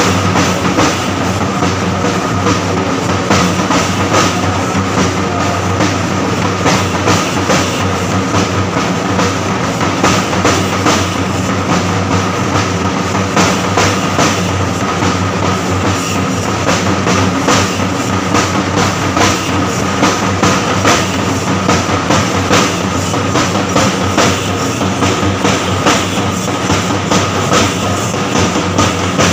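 Chenda drum ensemble beating a fast, dense, continuous rhythm without a break.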